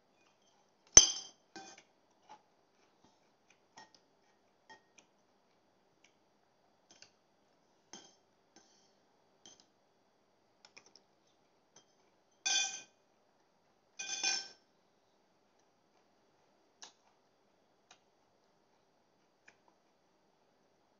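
Metal fork and spoon clinking and scraping on a plate while eating: one sharp clink about a second in, scattered faint ticks, then two longer ringing clinks about a second and a half apart past the middle.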